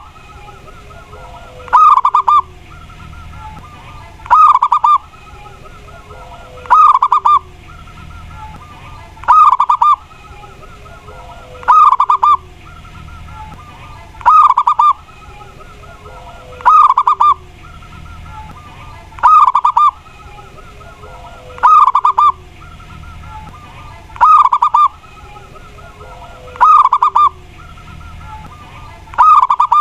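Zebra dove (perkutut) singing its cooing song: one short phrase of a few quick coos, repeated steadily about every two and a half seconds, as used for a lure call.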